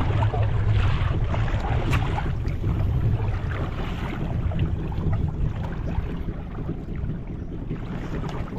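Wind on the microphone and water washing against a small fishing boat's hull, with a steady low rumble underneath.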